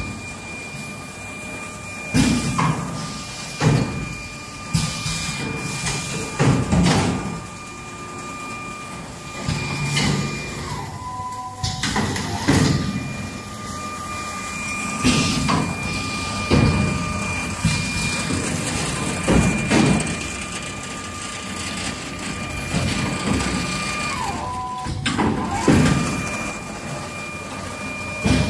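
BDK-75B wooden ice cream spoon bundling machine running: a string of sudden clunks and hisses from its air-driven mechanism, one every one to two seconds, over a steady high whine. The whine drops away briefly twice.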